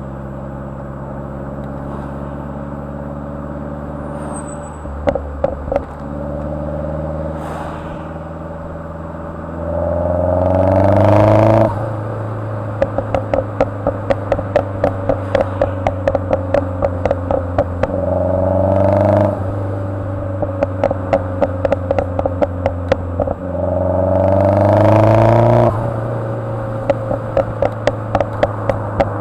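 2010 Mazdaspeed3's turbocharged 2.3-litre four-cylinder, with a few pops from the exhaust about five seconds in, then revved up three times. After each rev drops off, the tune's enabled overrun pops-and-crackles map makes the turbo-back exhaust crackle with rapid popping for several seconds.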